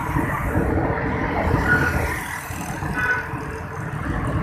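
Steady road traffic noise of cars and motorcycles passing on a city road, with two short high beeps about a second and a half apart.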